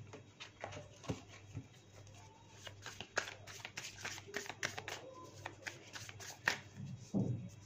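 A tarot deck being shuffled by hand: an irregular run of quick, light card flicks and snaps.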